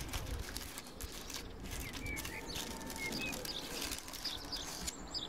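Faint small-bird chirps, a few short calls scattered through, over low wind rumble on the microphone.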